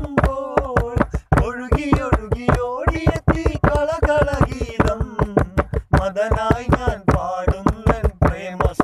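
Malayalam song: a voice singing a melody over a steady low drone, with sharp percussive strikes several times a second.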